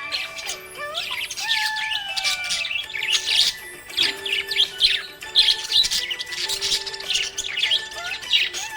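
Small pet parrots chirping and twittering in quick, high bursts, over background music with a sustained melody.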